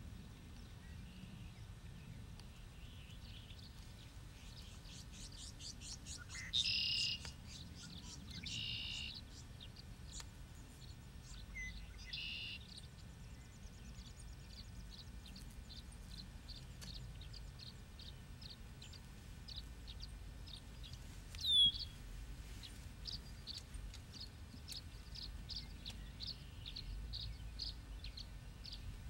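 Small songbirds calling in a wetland: scattered high chirps and short buzzy trills, then a run of quick repeated high notes in the last third. About two-thirds of the way through comes one sharp, falling whistle, the loudest sound, all over a low steady rumble of background noise.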